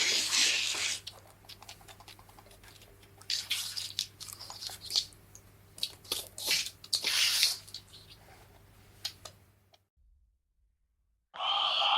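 Irregular wet clicks, squishes and crackles in uneven bursts, stopping about ten seconds in. Near the end a short, loud breathy sound starts.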